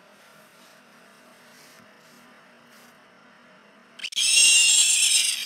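Faint electrical hum, then about four seconds in a loud, shrill horse whinny sound effect played through an iPod touch's small speaker, lasting about a second and a half.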